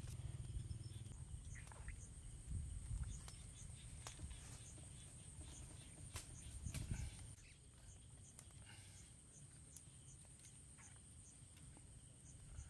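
Faint outdoor ambience: a steady high insect drone with a short chirp repeating about every half second, and a couple of low dull rumbles of movement in the first half.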